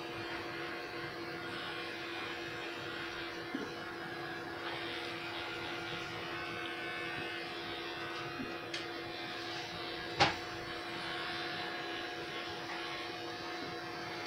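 Electric pet hair clippers running with a steady hum as they shave a dog's coat, with a single sharp click about ten seconds in.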